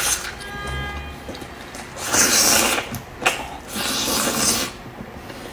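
Close-miked eating of a crab-roe soup dumpling: two long, hissing slurps, about two and four seconds in, with small clicks between them.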